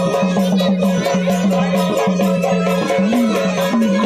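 Instrumental Marathi folk devotional music of a Khandoba jagran: a steady held drone-like melody with repeating gliding notes, over quick hand-drum and jingling rattle percussion.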